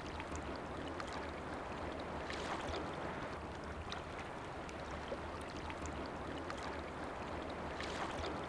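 Faint, steady water sounds of lake water lapping at the shore, with scattered small clicks.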